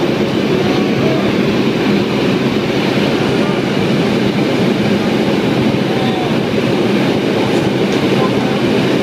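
Four-engine turboprop of a C-130 Hercules heard inside the cabin: engines and propellers drone loudly and steadily in cruise, a dense, even rumble with a low hum.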